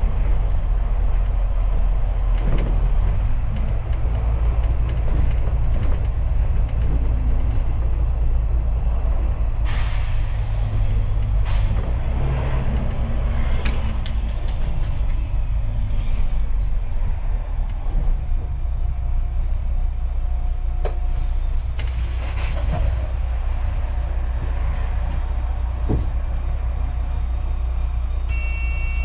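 Double-decker bus heard from on board while under way: a steady low engine and road rumble with scattered knocks and rattles, and a short hiss of air brakes about ten seconds in.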